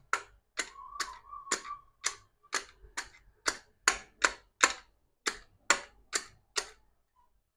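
A quick series of sharp clicks, about two a second and a little uneven, from a screwdriver working the terminal screws of a plastic double cutout. The clicks stop near the end.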